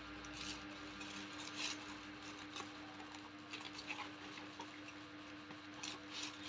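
Faint steady electrical hum with a few soft, scattered clicks and rustles.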